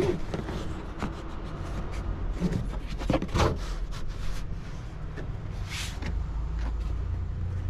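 Hands handling and tugging at a Jeep Renegade's interior plastic trim, giving a few short knocks and scrapes, over a steady low hum.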